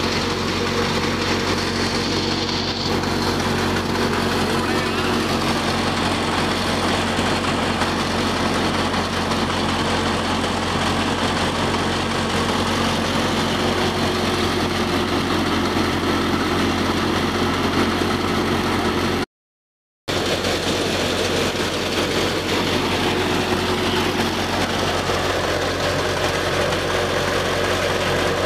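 Engine-driven chickpea thresher running steadily while chickpea plants are fed into it: a constant, loud mechanical drone. It cuts out for under a second about two-thirds of the way through.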